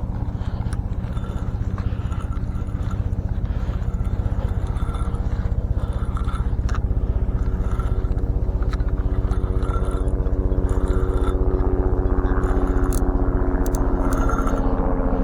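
An engine running steadily, its pitch rising slightly and getting a little louder over the last few seconds, with a few faint clicks.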